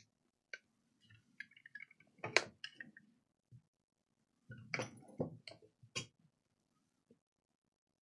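Faint, scattered clicks, taps and clinks of tools and laptop parts being handled on a repair bench, with one sharper knock about two and a half seconds in and a cluster of clicks around five to six seconds in.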